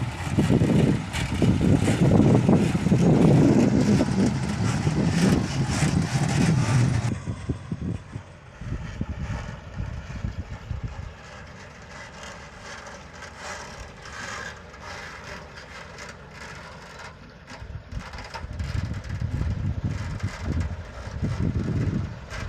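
Heavy-machinery diesel engine running, loud for the first third. It then drops abruptly to a quieter, thinner sound and grows louder again near the end.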